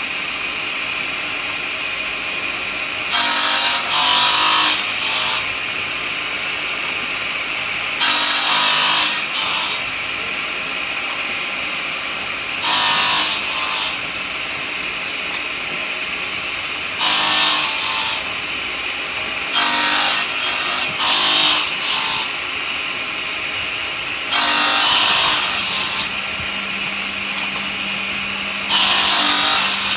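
Stone-cutting saw running with a steady high whine, broken about eight times by loud, harsh grinding stretches of a second or two each as the blade bites into the stone.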